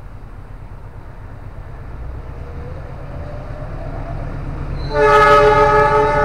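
A KAI CC206 diesel locomotive hauling a passenger train approaches with a low rumble that grows louder. About five seconds in, its horn sounds loud and sudden as a greeting from the driver.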